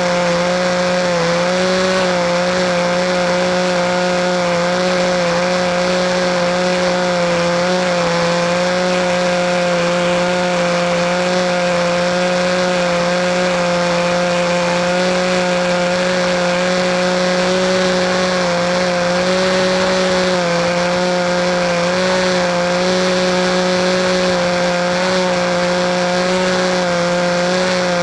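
Radio-controlled model airplane's small glow engine running steadily at high speed, its pitch wavering slightly as it flies.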